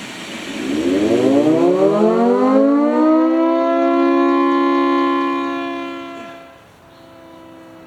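Half-scale Hurricane MKII mechanical siren with a cut horn, powered by a shop vacuum, sounding an attack wail: its pitch bottoms out at the start, rises over about three seconds to a steady high tone, then fades out near the end, leaving a faint steady tone. Very loud.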